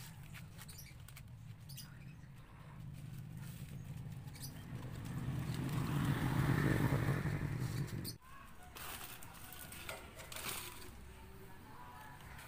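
An engine drone grows louder toward the middle and cuts off sharply about eight seconds in. Under it and after it come light ticks and rustles of palm fronds being handled and woven.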